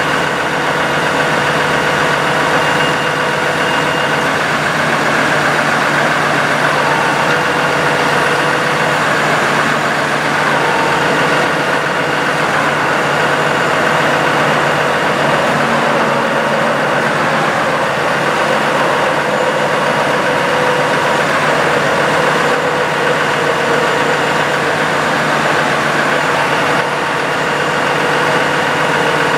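2012 Dodge 5500 utility truck's engine idling steadily, an even hum that holds the same speed throughout.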